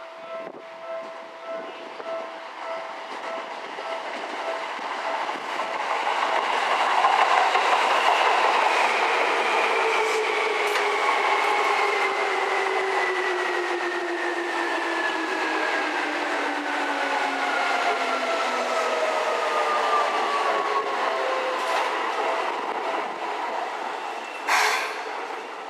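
Seibu 3000 series electric train arriving: a level crossing alarm dings at first, then the train runs in over the rails with a whine that falls steadily in pitch as it brakes. A short hiss of air comes near the end.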